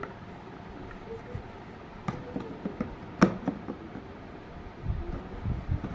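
Hollow plastic toy-kitchen parts knocking and clicking as they are handled and pressed together, with one sharp click a little past the middle and a few low bumps near the end.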